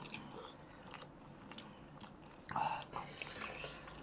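Close-up biting and chewing of sauce-coated fried chicken, soft and wet, with scattered small clicks of the mouth and a louder mouth sound about two and a half seconds in.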